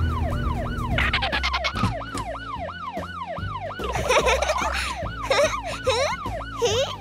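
A cartoon police car's siren, a fast yelp rising and falling about three times a second. A short rattle comes about a second in, and squeaky cartoon effects sound over it from about four seconds.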